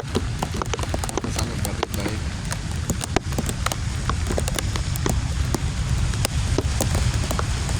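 Heavy rain falling, with many drops striking close to the microphone as sharp ticks over a steady hiss, and a low rumble underneath.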